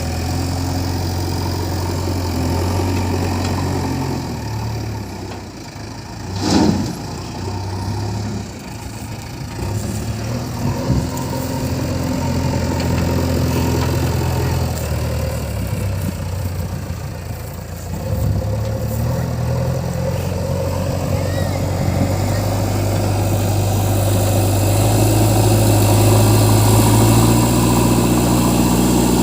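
Heavy diesel engines of a backhoe loader and tractors running, the engine note shifting up and down as they idle and rev under work. A short loud burst comes about six and a half seconds in, and the engine sound grows louder after about twenty-two seconds.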